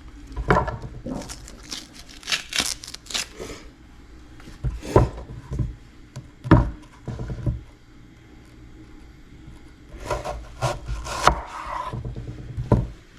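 Knife cutting a red onion on a cutting board: scattered, irregular knocks and scrapes of the blade against the board.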